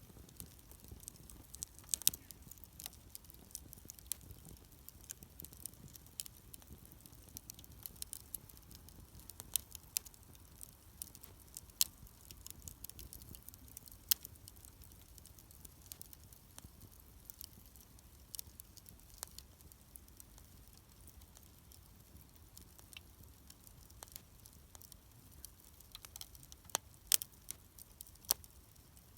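Wood campfire crackling: irregular sharp pops and snaps, a few louder ones about two seconds in and again near the end, over a faint low background.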